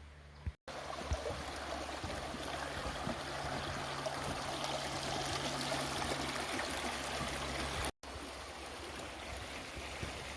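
A creek running steadily, an even rush of flowing water, broken by two brief dropouts, about half a second in and near eight seconds.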